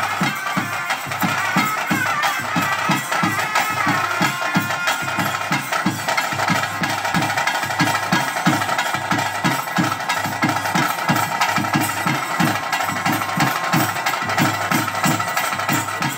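Traditional ritual drum-and-pipe ensemble accompanying a bhoota kola dance. Drums beat a fast, even rhythm of about three strokes a second under a high, held wind-instrument melody.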